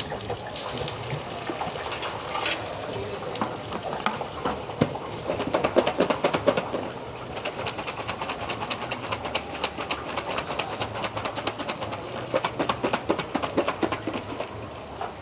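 Rapid, irregular clicking and clattering, many sharp ticks a second, densest in the second half, over a steady background hum.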